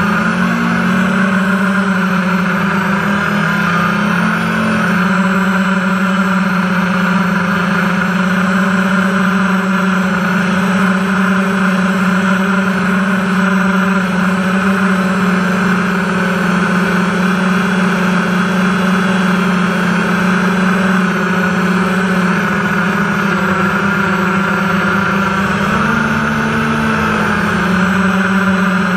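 FPV multirotor drone's electric motors and propellers buzzing steadily, picked up close by a GoPro strapped to the frame. The pitch wavers slightly a few times as the throttle changes.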